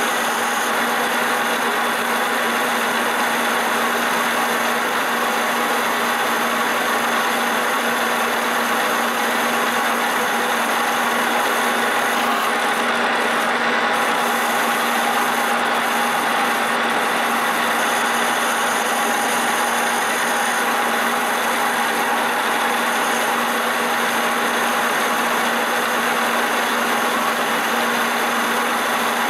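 Metal lathe running steadily while a tangential tool holder's cutter turns a metal shaft. A constant machine sound with several fixed tones and no sudden changes.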